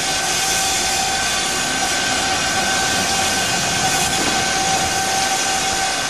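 Steam locomotive 1638, a Southern Railway U-class 2-6-0, hissing loudly and steadily as it releases steam, with a steady high tone running through the hiss.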